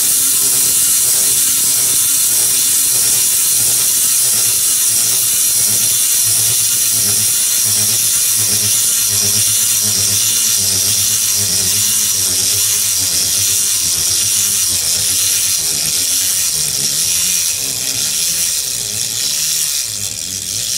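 Clockwork wind-up toys running: a steady mechanical whirring and clattering of their spring-driven gears as they walk and wave.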